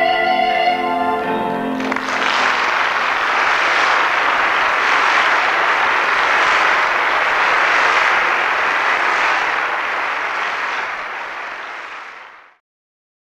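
The last held notes of a song end about two seconds in, then an audience applauds steadily and the applause fades out near the end.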